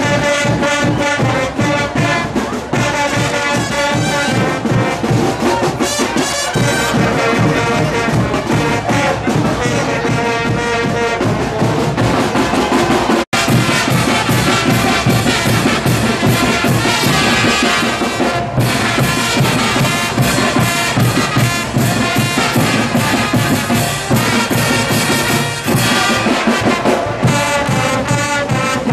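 Brass band playing a lively carnival tune in the street, saxophone and large brass horns over a steady drum beat. The sound drops out for an instant about halfway through.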